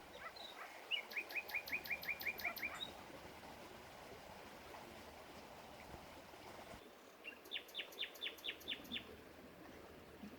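A small songbird gives two quick runs of sharp chirps, about five a second, one starting about a second in and another around seven seconds in, over a steady murmur of flowing water.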